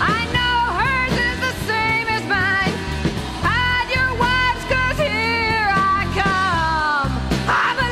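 A rock song with a voice singing long, wavering held notes over a band.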